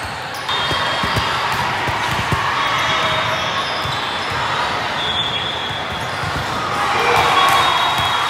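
Busy sports-hall din: a steady background of many voices, with scattered knocks of volleyballs bouncing and being hit across the hall's courts.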